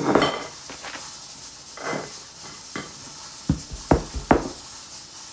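Kitchen clatter as a mixing bowl and spatula are set down, then three low knocks about three and a half to four and a half seconds in as a white loaf dish of batter is handled on a wooden counter.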